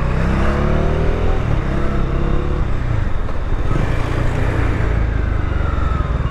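Bajaj Dominar 400's single-cylinder engine accelerating, its pitch rising, dropping about three seconds in, then rising again, with wind rush heard through a microphone inside the rider's helmet.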